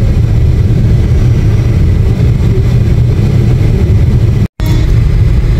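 A car driving along a road, heard from inside the cabin: a steady, loud low rumble of engine and road noise. It is broken once by a split-second silent gap about four and a half seconds in.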